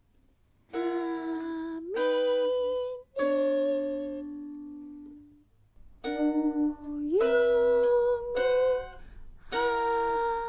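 Sparse, slow music of guitar and voice starting about a second in: a few separate held notes with short gaps between them, two of which slide upward in pitch.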